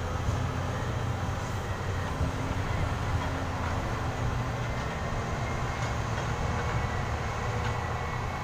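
Diesel engines of heavy mining equipment running: a steady, unbroken low drone.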